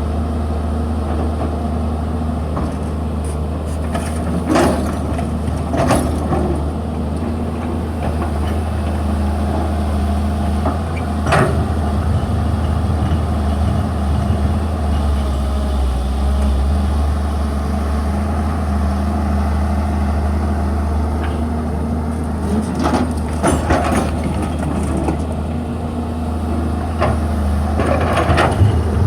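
Excavator's diesel engine running steadily under load, with a few sharp knocks now and then, several of them late on.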